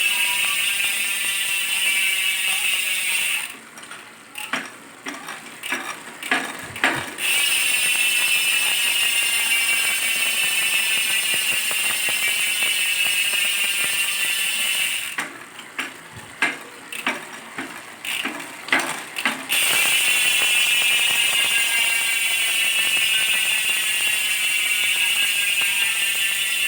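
Aeroic AM 6.3 bicycle hub freewheeling with a loud, rapid ratchet buzz from its pawls, slowly falling in rate as the wheel coasts down. Twice the buzz stops for a few seconds, with scattered single clicks and knocks, then starts again at full speed.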